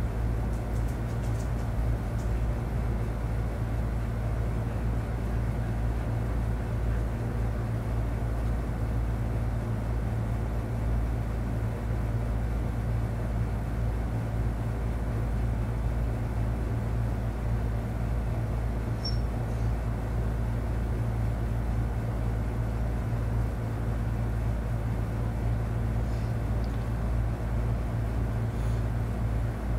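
Steady low hum and rumble of room noise that does not change, with a brief faint high blip about two-thirds through and a couple of faint clicks near the end.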